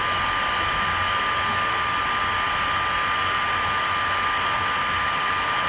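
Steady hiss with a thin, constant high whine and a faint low hum: the recording's background noise, with no other events.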